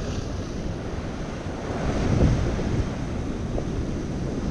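Ocean surf breaking and washing against a rock ledge, swelling louder about two seconds in, with wind buffeting the microphone.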